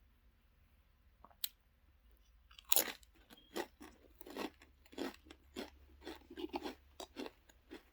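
Someone biting into and chewing Lay's Stax potato crisps: one loud bite a little under three seconds in, then quick crunches about three a second. A single sharp click comes earlier, about a second and a half in.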